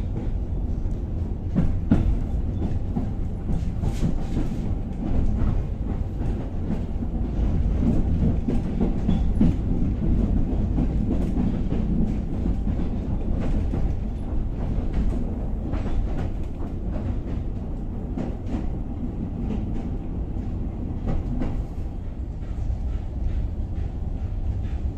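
Narrow-gauge railway carriage in motion, heard from inside: a steady low rumble of the running gear with irregular clicks and knocks as the wheels pass over rail joints and points.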